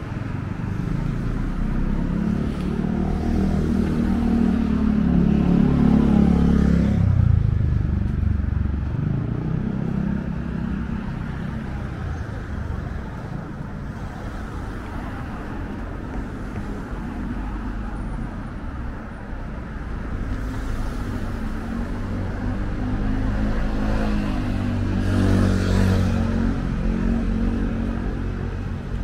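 Road traffic: motor vehicles passing close by twice, the engine hum swelling, then dropping in pitch and fading as each goes past, over a steady low rumble.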